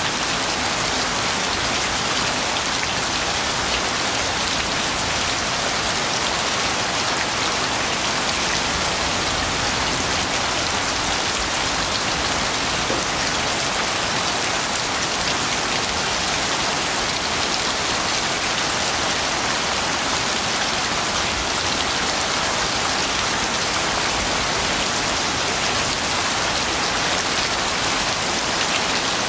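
Steady, heavy rain falling on a surface, an even hiss of many drops that does not change.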